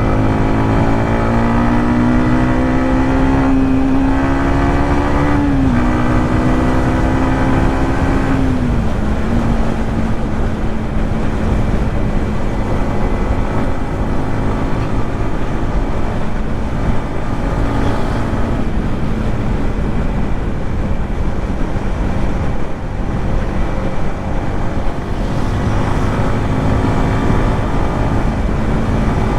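Yamaha MT-15's single-cylinder four-stroke engine and exhaust under way. The engine note climbs slowly, then drops in two steps in the first nine seconds. After that it runs steadily under heavy wind rush on the microphone.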